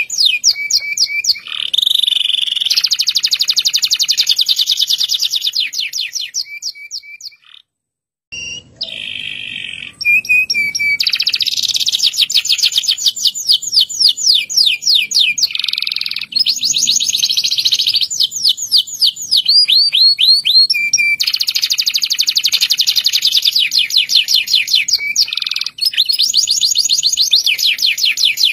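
Domestic canary singing long rolling trills of very fast repeated high notes, broken by a short pause about eight seconds in.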